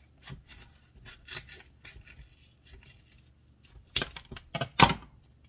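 Kitchen scissors cutting open a shelf-stable tofu carton: a run of small snips and rustles of the carton, then three louder sharp cuts a little after four seconds in, the last the loudest.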